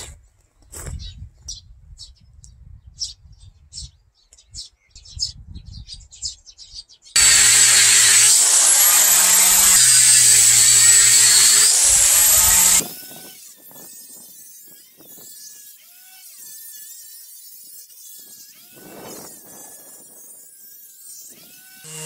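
Cordless drill with a round sanding disc running loudly against a wooden pillar for about five seconds, its whine sweeping up twice, then stopping abruptly. Before it there are scattered bird chirps.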